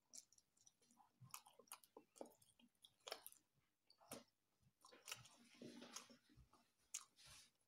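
Faint close-up chewing of grilled chicken barbecue: soft wet mouth clicks and smacks coming irregularly, a few each second.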